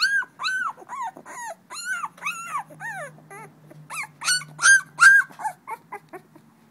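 Two-week-old American Pit Bull Terrier puppy crying in a rapid series of high, arching squeals, about two a second, softening briefly about halfway through before a louder run and then trailing off.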